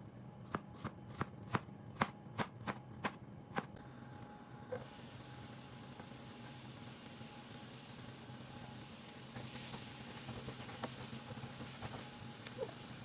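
Kitchen knife chopping a yellow onion on a cutting board, about three even cuts a second, stopping after a few seconds. About a second later a steady sizzle starts, growing louder past the middle, with a few light clicks in it.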